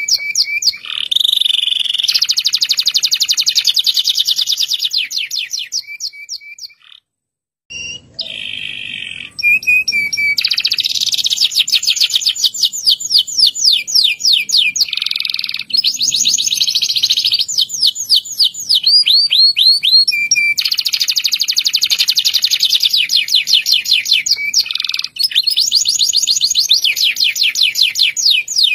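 Domestic canary singing long rolling trills: rapid, evenly repeated notes running on for several seconds at a time, with a brief silent break about seven seconds in.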